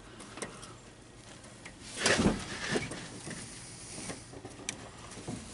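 Light clicks and knocks with a louder scraping rustle about two seconds in: hand tools and metal parts being handled at the engine.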